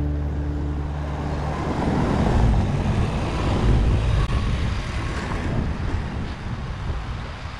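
Road traffic noise: vehicles passing, with a low rumble that swells about two and a half and four seconds in, then slowly fades.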